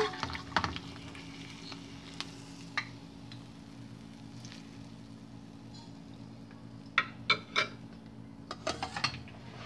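Hot oil sizzling faintly in a frying pan just after the burner is turned off, with clinks and scrapes of a spatula against the pan and plate as fried eggs are lifted out: a few right at the start, then a cluster about seven to nine seconds in. A steady low hum sits under it all.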